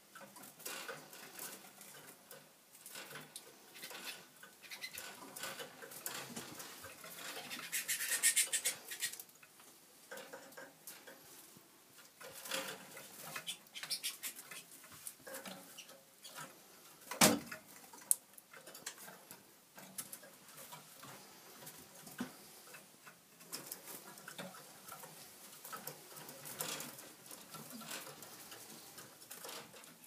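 Fife canaries moving about their breeding cages: a steady light patter of small scratches, ticks and rustles from feet on perches, wire and floor litter, with bursts of wing flutter. One sharp knock a little past halfway is the loudest sound.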